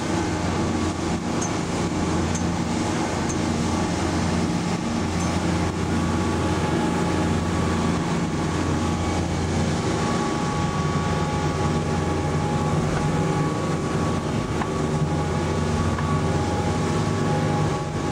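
Boat engine running steadily at cruising speed, a constant low drone, with the rush of wake, spray and wind over the hull.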